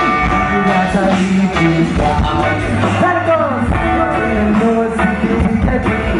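Live rock band playing: a lead singer over electric guitar and drums, loud and continuous, heard from within the audience.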